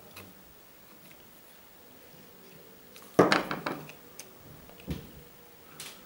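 Tools or small hard parts clattering as they are handled and set down: one loud clatter about three seconds in, a smaller knock a couple of seconds later, and a few light clicks.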